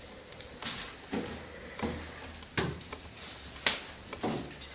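Hands working a ball of pizza dough on a floured wooden board: a handful of short, soft pats and brushing sounds.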